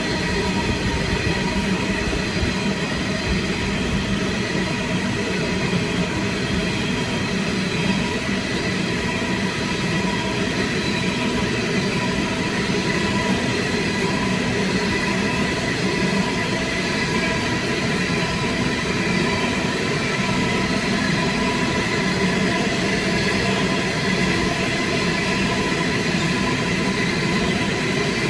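Coal train's hopper wagons rolling past on the rails: a steady, continuous rumble of wheels on track with a faint steady whine over it.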